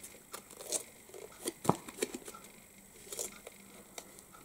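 Kraft cardstock being handled and creased by hand as small tabs are pre-folded: faint rustling with scattered small clicks, one sharper tick about one and a half seconds in.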